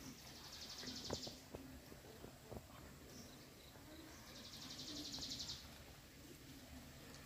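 A puppy eating omelet from a stainless steel bowl: scattered clicks and smacks of chewing and licking against the bowl. A high trill sounds twice in the background, once at the start and again a little past the middle, each lasting about a second.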